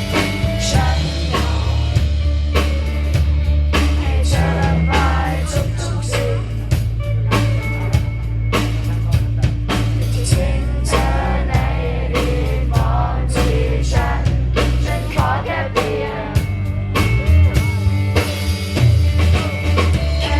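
Live band playing a song: a singer's voice over a steady drum beat and a heavy low bass line.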